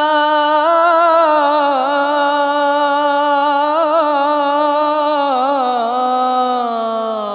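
A male muezzin chanting the dawn (Fajr) call to prayer solo, holding one long ornamented note on "hayya 'ala as-salah" (come to prayer). The pitch winds up and down and sinks lower near the end.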